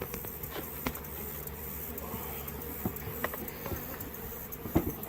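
A mass of honey bees buzzing around freshly installed nuc hives, a steady hum, with a few light knocks now and then.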